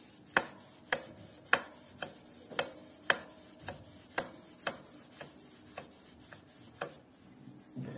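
Electric bike's drivetrain turned during cleaning, giving a steady run of sharp clicks about twice a second that grow fainter toward the end.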